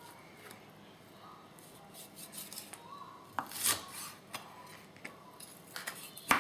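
Whole chicken wings being cut apart at the joints on a cutting board: a few scattered clicks, a louder short scraping cut a little past halfway, and a sharp knock at the end.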